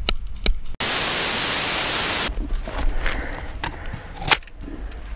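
A burst of loud white-noise static, about a second and a half long, that switches on and off abruptly: an edited-in static transition between clips. A few light clicks come before it, and faint ticks and one sharp click come after it.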